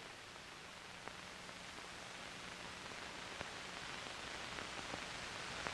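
Faint steady hiss with a few soft clicks, slowly getting louder: the background noise of an old film soundtrack.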